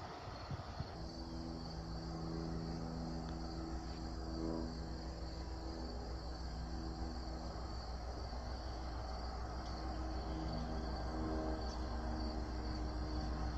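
Insects chirping steadily, with a low hum from a distant approaching train that slowly grows louder.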